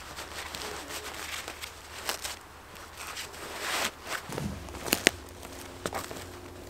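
Fabric rustling and scuffing as padded tactical gloves are pulled on and adjusted, then footsteps in wellington boots over twigs and leaf litter, with a couple of sharp clicks about five seconds in.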